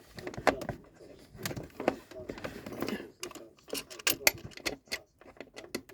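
Irregular clicks, knocks and rustling from handling a new plastic wall socket with USB ports and working its wiring toward the back box.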